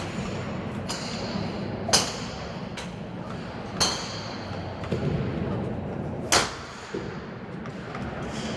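Golf clubs striking balls at a driving range: a series of sharp cracks, roughly every one to two seconds, the loudest about two seconds in, near four seconds and past six seconds, over a steady background noise.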